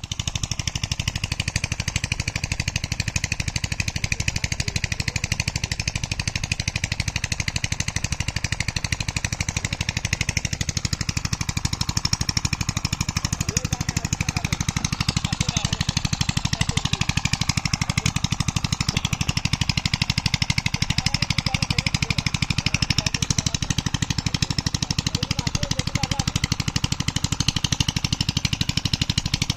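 A small engine running steadily, a fast even chugging that doesn't change.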